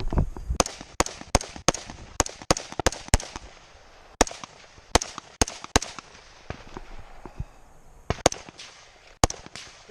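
A string of gunshots fired in quick runs after the start signal of a timed shooting stage, about twenty sharp cracks. Some are louder than others, and there is a short lull a little after halfway.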